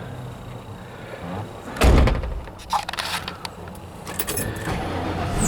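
A vehicle door shutting with one heavy thump about two seconds in, followed by a few lighter clicks and rattles.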